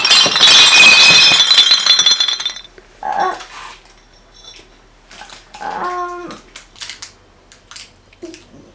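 Glass bottles clinking and rattling loudly for about two and a half seconds, then two short whining vocal sounds about three and six seconds in.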